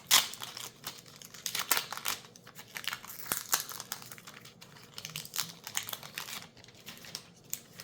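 Foil wrapper of a Magic: The Gathering collector booster pack crinkling and crackling as it is opened, in an irregular run of rustles and sharp crackles.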